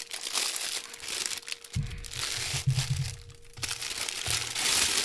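Thin plastic bag crinkling and rustling on and off as it is peeled and pulled away from a large telephoto lens.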